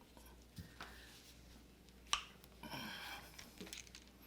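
Faint handling of a hand lug crimping tool and a copper battery-cable lug, with one sharp click about two seconds in as the tool is worked onto the lug.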